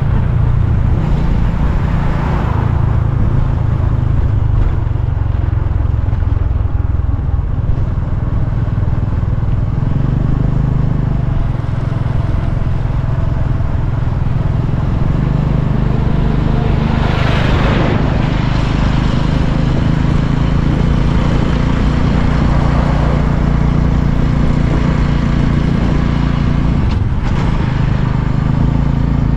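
Motorcycle running steadily on the move, with road and wind noise. About seventeen seconds in, a brief rush of noise rises and falls as a vehicle passes.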